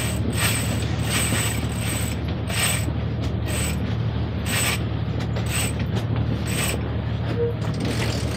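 Sailboat winch being cranked by hand, its ratchet clicking in strokes about once a second, over a steady low hum.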